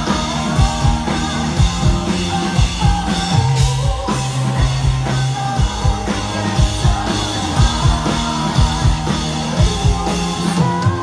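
A live rock band playing through the stage PA: a steady kick-drum beat, sustained bass-guitar notes and a woman singing.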